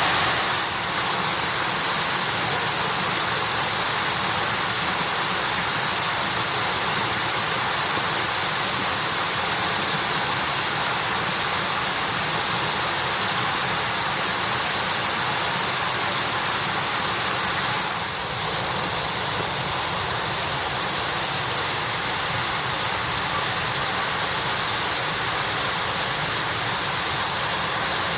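Steady rushing and splashing of Shiraito Falls, a wide curtain of many thin streams of groundwater spilling down a rock face.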